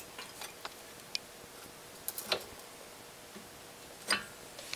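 A few scattered light clicks and taps from a 14 mm open-end wrench on the brake line fitting of a BMW E46 front brake caliper, as the line is being broken free. The loudest clicks come about two seconds in and again near the end.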